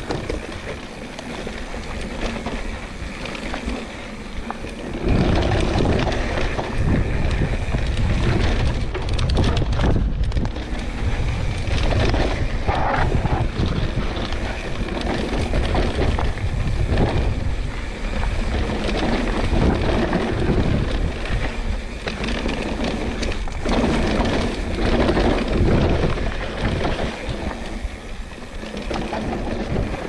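Pivot Switchblade mountain bike descending a dry dirt trail at speed: tyres rolling and chattering over the ground, with wind buffeting the camera microphone. It gets louder about five seconds in as the speed picks up.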